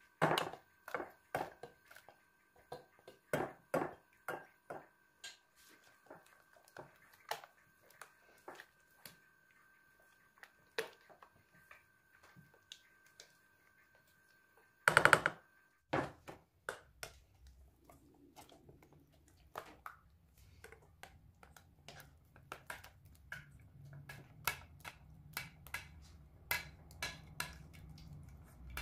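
Kitchen utensils tapping, clinking and scraping against a metal saucepan as diced apples are tipped into thick custard and folded in with a spatula. There is one louder clatter about fifteen seconds in, and after it a faint low hum runs under the continuing taps.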